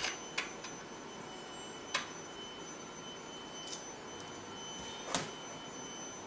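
A few light, scattered metal clicks and taps as a metal spacer bar is fitted over the rear main-cap studs of a Cummins main bearing girdle, over a faint steady background hiss.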